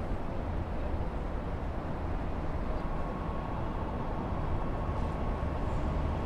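Steady low rumble of urban rail and road traffic, with a faint steady whine coming in about halfway through.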